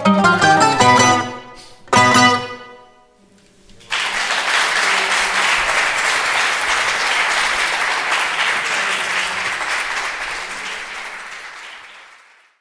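Mandolin quartet of two mandolins, a mandola and a guitar plays its closing bars, ending on one short, sharp final chord about two seconds in that rings out briefly. After a moment of quiet, an audience applauds steadily, fading out near the end.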